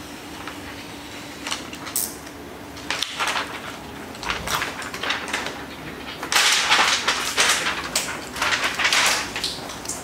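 Tint film being handled and smoothed on a car's windshield: a run of short rustling, scraping noises, sparse at first and thickest in the second half, over a faint steady hum.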